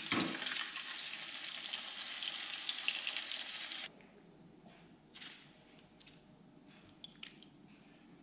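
Eggs frying in hot oil in a small pan, a steady loud sizzle that cuts off suddenly about four seconds in. After that it is much quieter, with a few faint taps and clicks as the fried eggs are laid onto rice in foam boxes.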